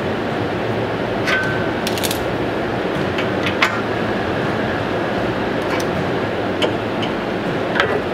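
Scattered sharp metallic clinks of a hand tool working a steel mounting-bracket tab, about seven over the stretch, one ringing briefly, over a steady background hum.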